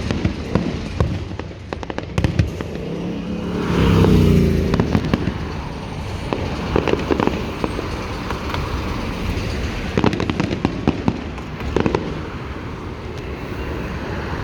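Fireworks display: a run of sharp bangs and crackling, with a louder, rumbling burst about four seconds in and a dense patch of crackles near the end.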